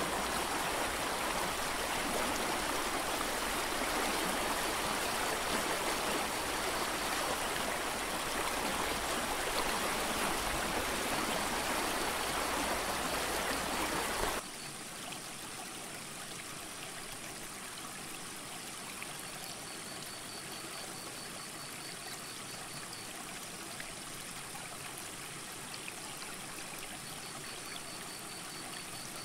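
Mountain creek water rushing steadily; about halfway through it drops suddenly to a quieter flow. A faint, high, rapid trill sounds twice in the quieter part.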